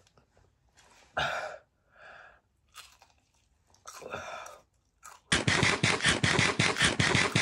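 Close-up chewing and crunching of a fried hot-chicken slider: a few separate chewing sounds, then in the last two seconds a loud, rapid crackling run of about eight crackles a second.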